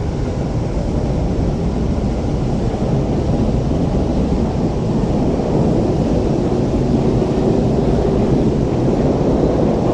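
Tokyu 5050-4000 series train with Hitachi IGBT VVVF inverter accelerating away from a station, a low rumble of traction motors and wheels on rail growing steadily louder. A faint inverter whine rises in pitch through the second half.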